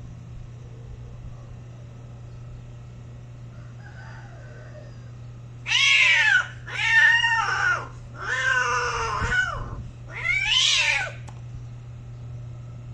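Cat yowling during mating: four loud, drawn-out calls in quick succession, each rising and falling in pitch, starting a little before the middle and stopping shortly before the pair separates.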